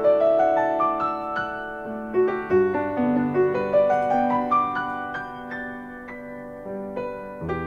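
Steingraeber & Söhne B-192 grand piano being played: a melody of struck notes over lower held notes, each note ringing on into the next.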